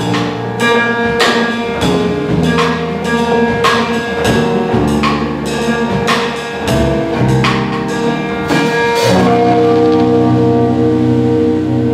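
Live jazz quartet of piano, electric guitar, double bass and drum kit playing, with drum and cymbal hits about every half second; about nine seconds in, the band settles on a long held chord.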